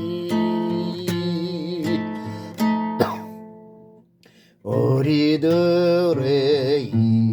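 A man sings with acoustic guitar strumming. His held note and the guitar fade out about three seconds in. After a short near-silent gap, a strum and the singing start again with a wavering voice.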